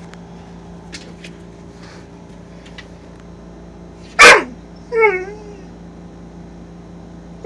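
Pit bull–type dog barking once, short and loud, about four seconds in, then a second later giving a short whining yowl that slides down in pitch, wanting to be let out up the companionway steps.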